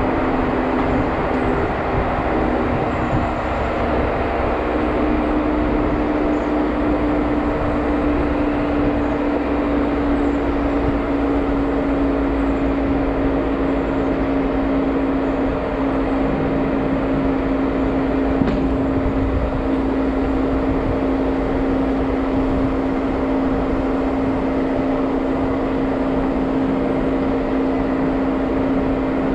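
Jeep Wrangler driving along a dirt trail, its engine and drivetrain running steadily with a constant droning tone that dips slightly in pitch a few seconds in. A brief click is heard about eighteen seconds in.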